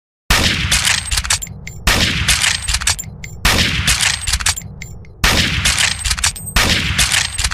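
Gewehr 98 bolt-action rifle (7.92×57mm Mauser) fired five times, about a second and a half apart; each loud shot rings off and is followed by a few sharp mechanical clicks.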